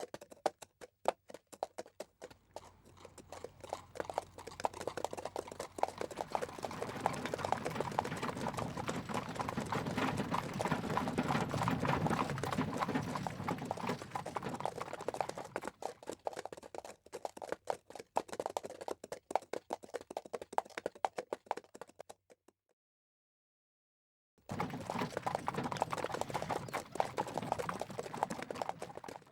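Steps on a hard surface with a clip-clop sound, many a second, building into a dense patter and thinning out again. After about two seconds of silence near the end, a second run of steps starts.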